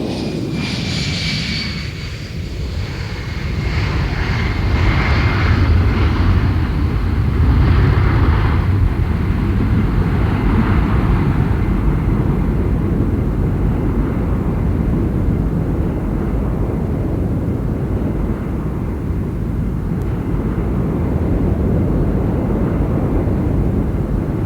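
Jet airliner's engines, loud and continuous. High whining tones slide slightly down in pitch over the first couple of seconds, then a steady deep rumble swells about four seconds in and holds.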